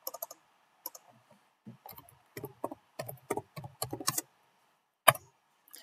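Typing on a computer keyboard, with mouse clicks: irregular runs of quick key clicks for about four seconds, then a single click about a second later.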